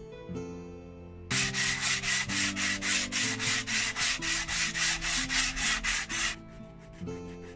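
Sandpaper on a hand sanding block rubbed over a thin wooden model-ship hull piece in quick back-and-forth strokes, starting about a second in and stopping about a second before the end. Soft background music plays underneath.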